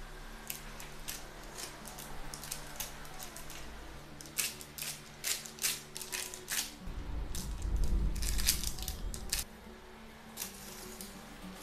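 Hands flattening soft dough balls on a parchment-lined metal baking tray: crinkles of the baking paper and light taps on the tray. Around two thirds of the way in comes a louder rustling bump as a cloth is handled and laid over the tray.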